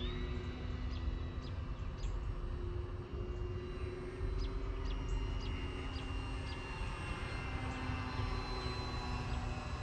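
Electric motors and propellers of radio-controlled model airplanes running overhead, a steady drone whose pitch drifts slowly.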